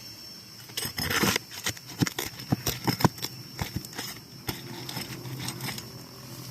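Hand work on asphalt roof shingles: a short scraping rush about a second in, then a run of sharp, irregular clicks and knocks as shingles and tools are handled.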